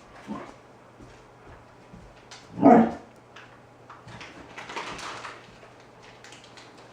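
Alaskan Malamute puppy giving a soft woof at the start and one loud, short bark a little under three seconds in, the puppy's fearful barking at a balloon. A short rustling noise follows about five seconds in.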